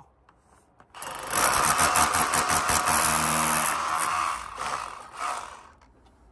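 Milwaukee M18 Fuel cordless rotary hammer running against a brick wall, starting about a second in with a fast hammering rattle over the motor's whine for about three seconds, then a couple of short bursts before it stops.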